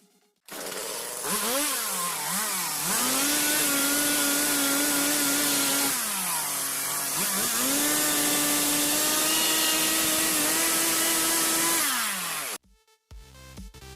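A power tool's motor running, probably working on wood. Its pitch wavers as it spins up and then holds steady. Around the middle it drops for about a second, then runs back up to speed before stopping abruptly near the end.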